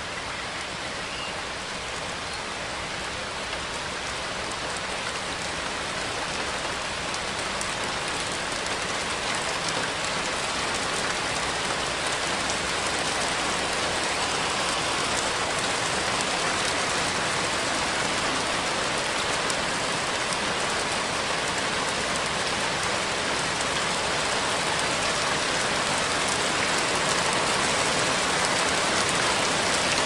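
Steady rain falling, a dense hiss of drops that grows slowly louder.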